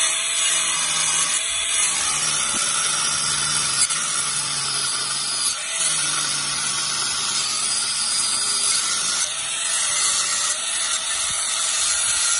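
Angle grinder cutting into a stone slab, running continuously under load, its pitch dipping now and then as the disc bites.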